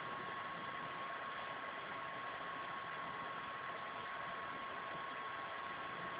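Steady background hiss with a thin, constant high tone running through it: room tone and recording noise, with no distinct event.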